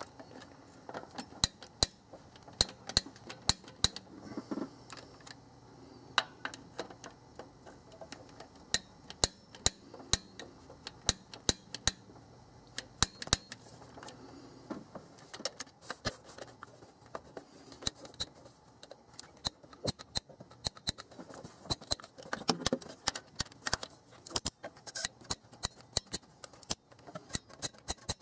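Torque wrench ratcheting and clicking on the water pump bolts, a run of sharp metallic clicks at uneven spacing, as each bolt is checked at 19 foot-pounds.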